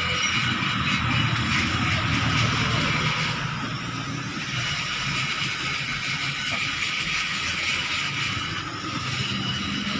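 Steady background road-traffic noise, a low rumble under a hiss, easing slightly about three and a half seconds in.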